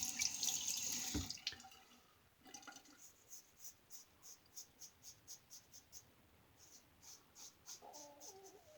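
Tap water running, shut off about a second in. Then a shaving brush swishing up lather in soft, even strokes about three a second. Near the end, a stomach growls.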